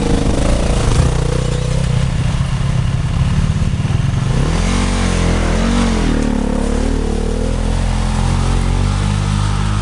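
Trail motorcycle engine running while riding, its revs rising and falling about halfway through, over a steady rush of noise on the microphone.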